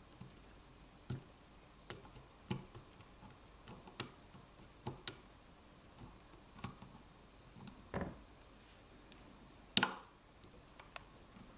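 Lock pick clicking and tapping against the pins inside an ASEC lock cylinder as the pins are probed and set under tension: small irregular clicks, roughly one a second, with one louder click near the end.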